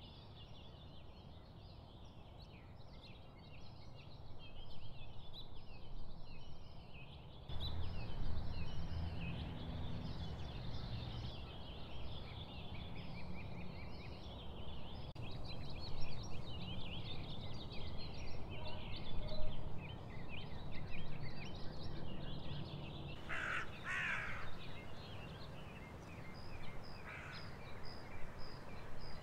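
Many small birds chirping and singing together over a low rumble that comes in abruptly about seven and a half seconds in. Two loud, harsh calls stand out near the end, followed by a run of short, evenly spaced high calls.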